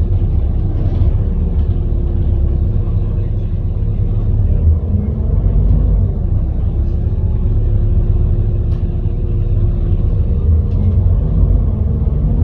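Volvo B7TL double-decker bus running, heard from on board: a heavy, steady low rumble with a faint steady whine above it, and short pitch glides about five seconds in and again near the end.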